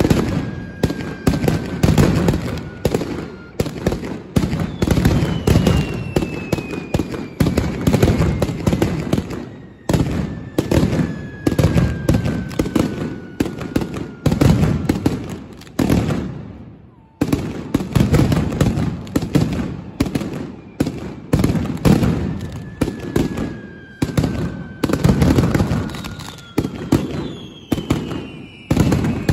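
Mascletà firecrackers strung on a line explode in a dense, rapid barrage of bangs, with a short lull just past halfway before the barrage resumes. Several long falling whistles sound over the bangs.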